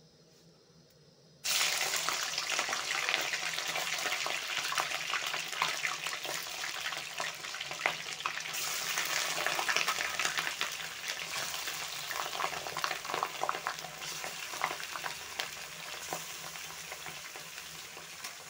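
Chicken pieces frying in hot oil in a kadhai: a loud sizzle starts suddenly about a second and a half in as the chicken goes into the oil, full of sharp crackles and spatters, then slowly eases off.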